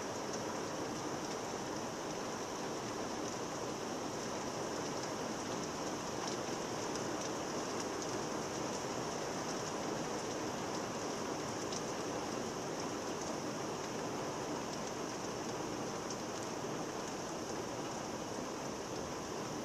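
Heavy rain falling steadily in a thunderstorm downpour, an even hiss with faint scattered ticks of nearby drops.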